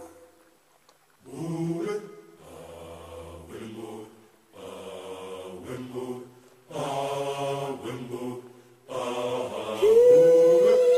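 Background music of voices singing chant-like chords in short phrases with brief pauses between them. Near the end a single voice starts a long held note with a slight waver.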